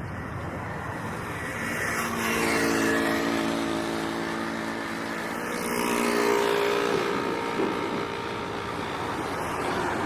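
A passing vehicle's engine hums steadily over street noise, growing louder about three seconds in and again around six seconds in, then fading.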